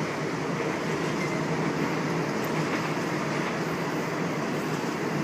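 Sydney Trains Oscar (H set) electric multiple unit passing through the platform, its carriages giving a steady noise of wheels on rails.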